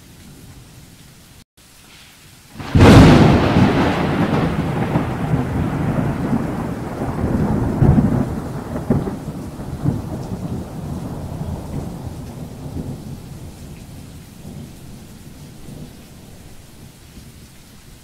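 Surf breaking on a beach of rounded stones: a wave crashes with a sudden loud rush about three seconds in, then the wash fades slowly over the next ten seconds, with a few sharper knocks along the way.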